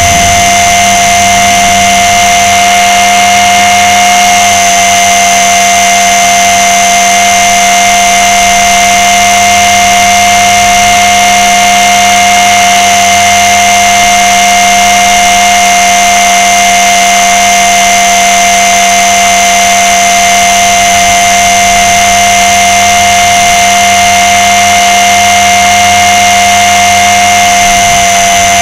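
Blade 300 X electric RC helicopter's brushless motor and rotors heard from a camera mounted on its underside: a loud, steady high whine with a whirring buzz, holding an almost constant pitch in hovering flight.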